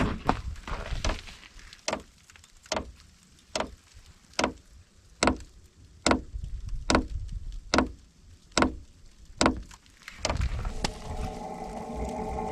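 Diesel air heater's fuel dosing pump ticking evenly, a little more than once a second, during start-up before ignition. About ten seconds in, a steady fan sound with a low hum starts up as the heater's blower speeds up.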